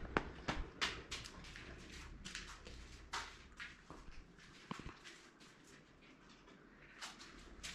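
Footsteps on a hard tiled and concrete floor, walking at a steady pace for the first few seconds, fading to a few scattered steps, then walking again near the end.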